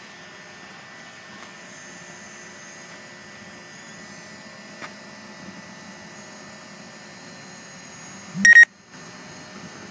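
DJI Mavic Pro quadcopter's propellers humming with a steady high whine. About eight and a half seconds in there is a short, loud electronic beep, and the sound cuts out for a moment after it.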